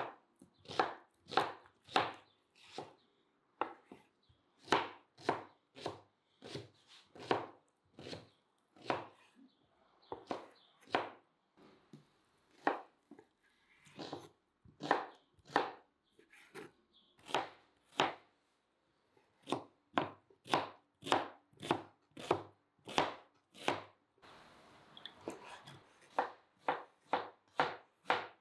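Kitchen knife chopping raw lamb and fat on a wooden cutting board, the blade knocking against the board in sharp, irregular strokes about one or two a second.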